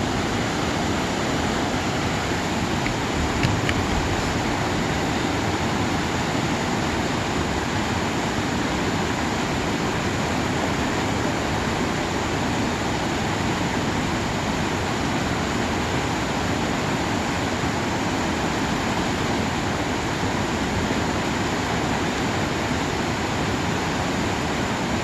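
Mountain valley stream swollen after overnight rain, its rushing water making a steady, even noise.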